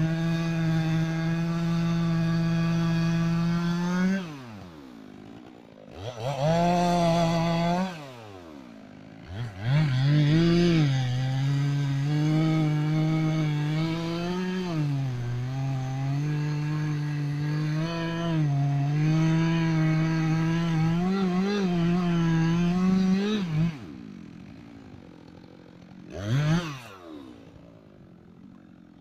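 Two-stroke chainsaw at full throttle that drops to idle about four seconds in and is revved briefly twice. It is then held at high revs for about thirteen seconds, the pitch dipping and wavering as the chain cuts into wood, before letting off to idle again with one more short rev near the end.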